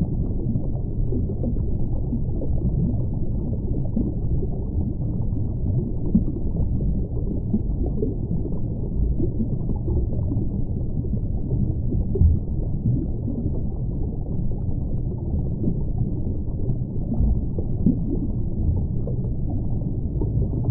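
Aquarium filter running: a steady, dull rush of circulating water with small irregular crackles.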